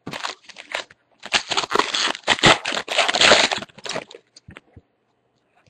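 A foil trading-card pack wrapper being torn open and crumpled: dense crinkling and tearing for about four seconds, then a few light rustles.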